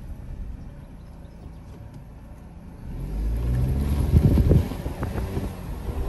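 Car driving, heard from inside the cabin: a low engine and road rumble that grows louder about halfway through.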